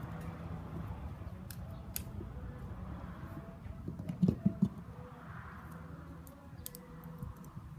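Light clicks and knocks of cart parts being handled as a wheel is slid onto its axle and fixed with a locking pin, with a quick run of three or four louder knocks about four seconds in.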